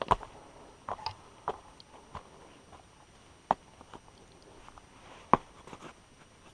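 Footsteps of a hiker on a bare rock trail: irregular scuffs and sharp knocks, with two louder strikes about three and a half and five seconds in.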